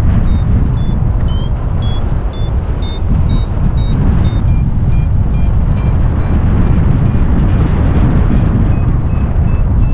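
Paragliding variometer beeping in short, evenly spaced high tones about twice a second, the sign that the glider is climbing, with the pitch dropping lower near the end. Underneath, steady rumbling wind buffeting the microphone from the airflow in flight.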